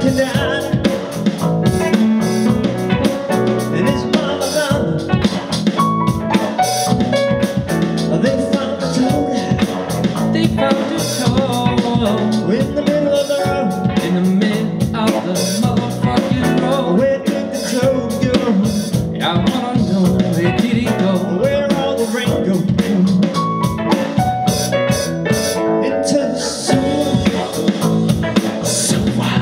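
A band jamming on electric guitar, electric bass, keyboard and an electronic drum kit, playing continuously with a steady beat.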